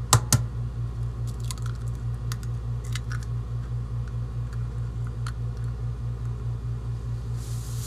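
An egg knocked twice against the rim of a mixing bowl to crack it open: two sharp knocks right at the start, then faint clicks of the shell being handled. A steady low hum pulsing a few times a second runs underneath.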